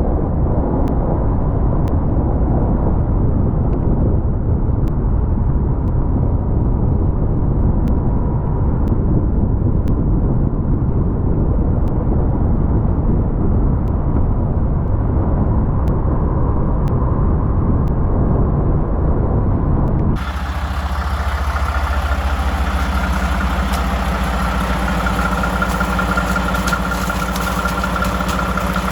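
Snowplow truck engine running: a dense, muffled rumble for about twenty seconds, then an abrupt cut to a steadier engine hum with a high, even whine.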